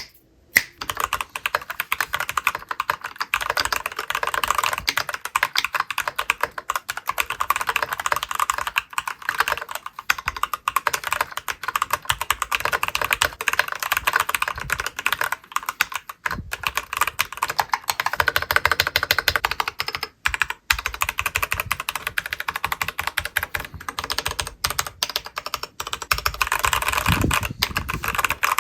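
Typing sound test on a Keychron V8 mechanical keyboard with Gateron Brown tactile switches: fast, continuous keystroke clacking with a few brief pauses.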